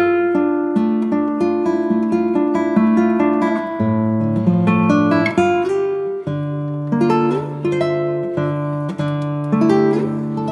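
Background music on acoustic guitar: a tune of plucked notes.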